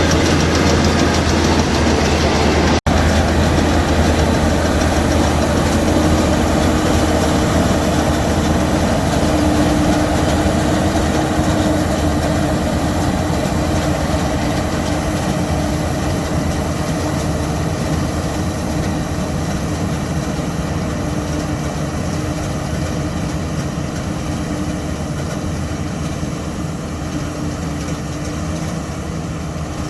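LS MC85 combine harvester running steadily while harvesting, its engine and threshing machinery giving a constant low hum with a steady mid-pitched tone. The sound cuts out for an instant about three seconds in and slowly grows fainter toward the end.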